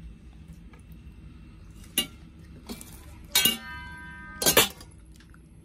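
Metal cutlery clinking against a china plate: a light tap about two seconds in, then two louder clinks about a second apart. The first of them leaves the plate ringing briefly.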